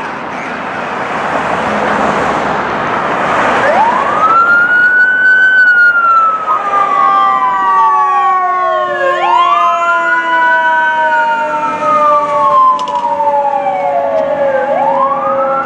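Mechanical Federal Q siren wailing: it winds up fast and coasts down slowly, three times, starting about four seconds in, over a steadier siren tone that slowly sinks in pitch. Before the wail starts, there is a loud rushing noise.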